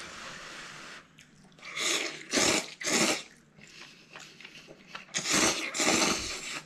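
A man blows on a chopstick-load of hot noodles, then slurps them in with a run of loud, short slurps about two seconds in and two more near the end.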